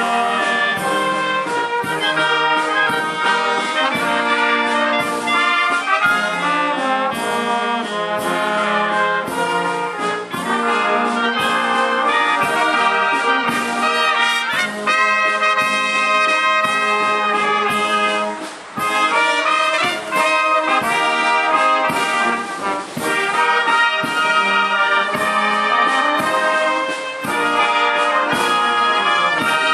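German brass band playing a waltz, trumpets and trombones carrying the tune over a regular beat, with a brief break about two-thirds of the way through.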